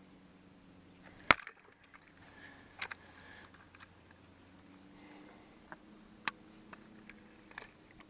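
Handling noise while a smallmouth bass is hooked onto a fish scale to be weighed: one sharp knock about a second in, then a few lighter clicks, over a faint steady hum.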